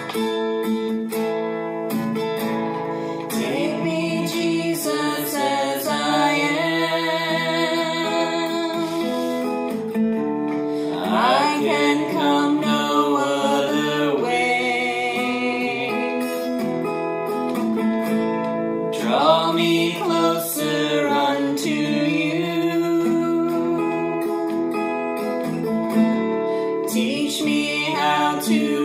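Acoustic guitar strummed as accompaniment, at first alone; after a few seconds a woman and a man join in, singing a slow worship song together.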